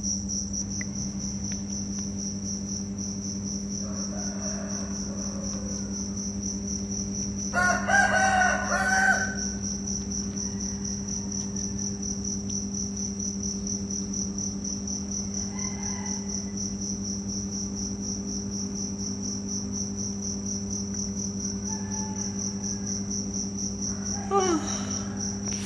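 Steady high-pitched trill of crickets over a steady low hum. About eight seconds in comes a louder pitched animal call lasting about a second and a half, in two parts.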